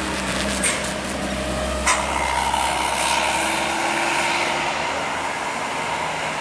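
Bus engines and traffic passing on a road: a steady engine drone with a low rumble that eases about four seconds in, with two short clicks early in.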